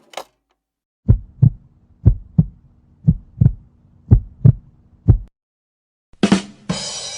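Heartbeat sound effect: low, paired lub-dub thumps about once a second, four beats and a last single thump. About six seconds in, a different effect starts with two sharp hits and then a noisy sustained sound.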